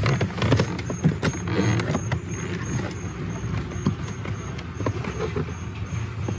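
Hands groping under a car's lower dashboard panel: rustling and scattered clicks and knocks against plastic trim, over a steady low rumble. A faint high-pitched beep repeats about three times a second throughout.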